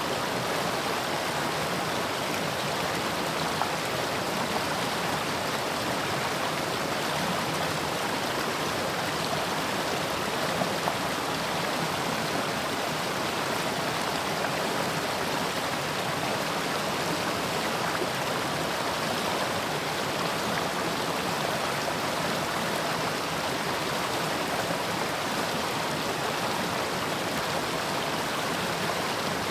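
Mountain stream running steadily over rocks, an even rushing and splashing of water that keeps up unbroken.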